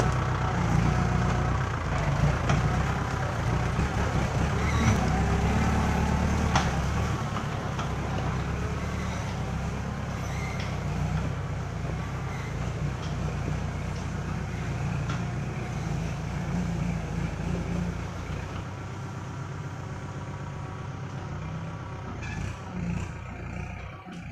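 Tractor engine running as the loader tractor drives off through mud, loud at first and getting steadily quieter as it moves away.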